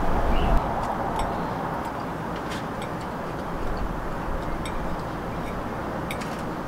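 Metal forks clicking and scraping on ceramic plates while pasta is twirled: a scatter of small, sharp clicks over a steady outdoor rumble.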